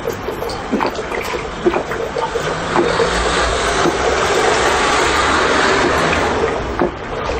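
A person gulping juice straight from a bottle without pausing. A steady rush of liquid and air in the bottle runs throughout, with a gulp about once a second.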